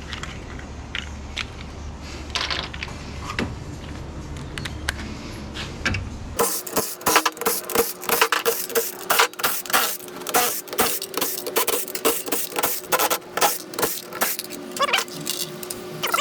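Metal clicking and clattering from tools and parts as scrap electrical switchgear is taken apart. At first a few scattered clicks over a low hum; about six seconds in the hum stops suddenly and a rapid run of sharp metallic clicks and knocks follows over a faint steady tone.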